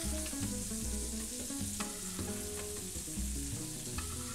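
Butter and oil sizzling in a tilted frying pan as a spoon bastes a pan-seared cod fillet with the hot butter. A couple of light clicks of the spoon against the pan.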